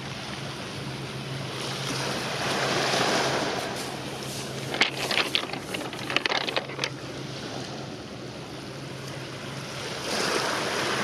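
Wind buffeting the microphone over lapping water at the shore, with a steady low hum underneath. The gusts swell about two to three seconds in and again near the end, and a cluster of sharp clicks and knocks comes midway.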